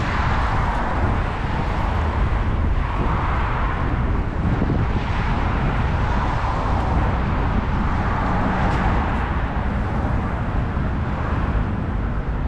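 Urban road traffic: a steady rumble with cars passing by, swelling and fading every few seconds.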